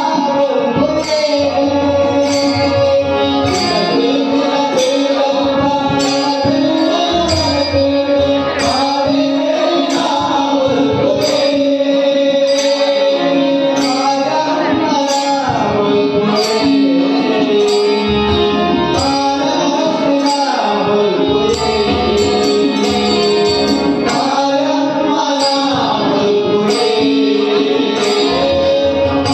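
Devotional bhajan performed live: voices singing the melody to harmonium accompaniment over a held drone note, with tabla keeping a steady beat.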